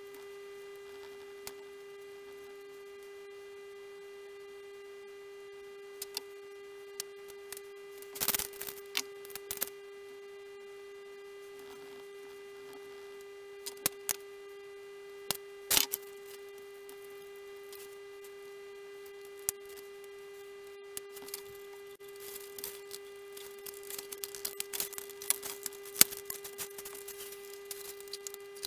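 A steady electrical hum with evenly spaced higher tones above it, under scattered small clicks and knocks of hand tools and small parts being handled on a workbench. Near the end comes a denser run of tapping and rustling as a balsa tail section is picked up and handled.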